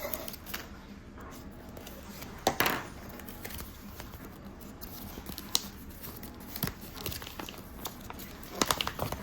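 Packaging of mystery toys being handled: crinkling and tearing of wrapper, with a louder tearing rustle a couple of seconds in and a cluster of crackles and clicks near the end.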